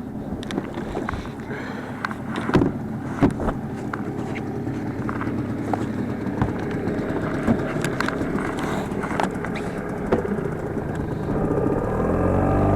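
A boat motor runs under way, with scattered knocks and rattles over a steady noise. Near the end the motor picks up speed, its pitch rising and then holding steady at a higher note.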